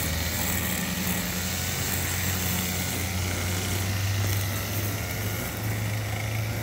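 Echo SRM-230 two-stroke string trimmer running at cutting speed, trimming grass: a steady engine drone whose pitch rises a little about five seconds in.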